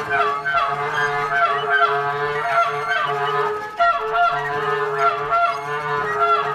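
Freely improvised music from a small group of violin, clarinet, guitar and bass: a held note sounds throughout while high pitches slide downward again and again, about once a second, over a plucked acoustic bass guitar line.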